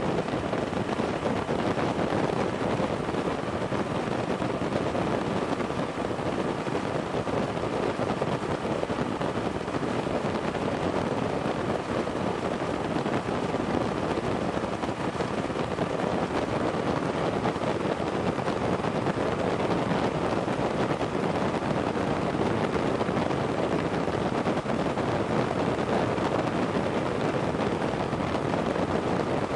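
Paramotor engine running steadily in flight, mixed with wind rushing over the microphone.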